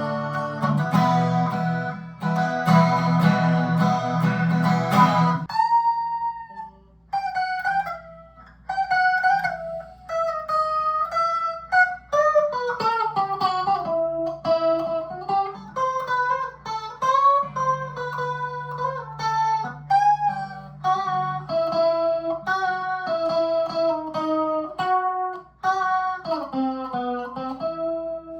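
Harley Benton S-style electric guitar played: strummed chords for about the first five seconds, then a single-note melody with string bends and slides.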